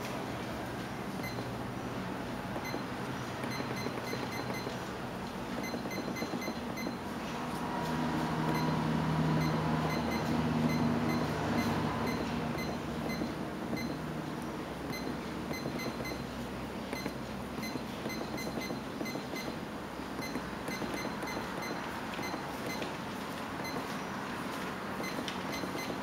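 Power-failure SMS alert unit's buzzer sounding faint groups of quick, high beeps every second or two: its alarm on losing mains power. Steady background hiss runs underneath, and a low hum swells between about 8 and 12 seconds in.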